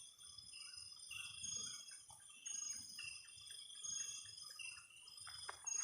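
Night insect chorus: several steady, high-pitched trilling tones overlapping and pulsing, with faint low thuds and a brief rustle near the end.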